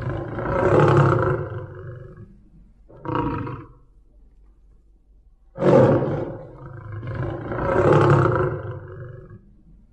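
Tiger roaring: a long, deep roar swelling and fading over the first two seconds, a short roar about three seconds in, then a second long roar that starts suddenly about five and a half seconds in, swells and dies away near the end.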